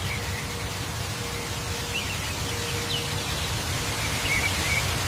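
Steady outdoor background noise, like a hiss, with a few faint short chirps.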